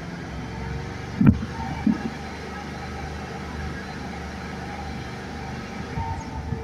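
Chevrolet Celta running at speed, up to about 80 km/h, a steady drone with a light noise that could be a wheel bearing or the gearbox. A sharp knock about a second in and a softer thump shortly after.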